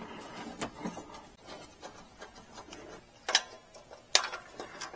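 Scattered light clicks and taps of small metal carburetor parts being handled, with three sharper clicks among them.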